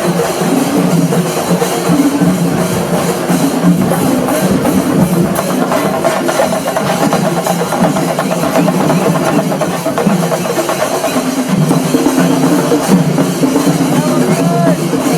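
Music with drums and percussion under a sustained melody line, playing continuously.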